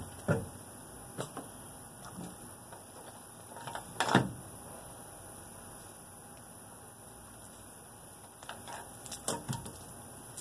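Handling noises as a rabbit carcass is worked by hand on a plastic pickup bed liner: a few scattered dull knocks and bumps, the loudest about four seconds in, with a small cluster near the end.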